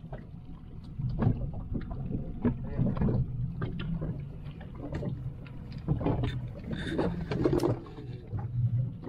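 Fishing boat's engine running with a steady low drone, with sharp knocks and clatter on the deck throughout.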